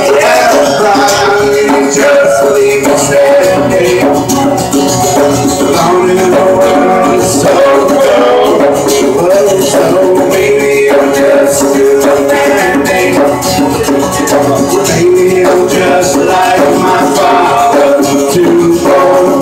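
Live acoustic band music: two acoustic guitars playing with hand percussion keeping a steady rhythm.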